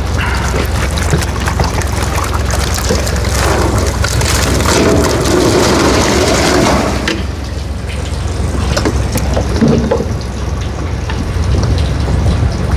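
Water gushing and splashing as live crucian carp are released from a fish-transport tank into the pond. It is loudest for about the first seven seconds and then eases off, over a steady low hum.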